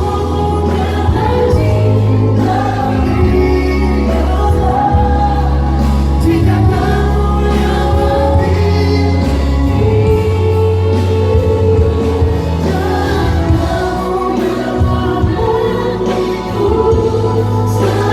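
Live pop music with singing over a band, a strong bass line changing notes every second or two under long sung lines.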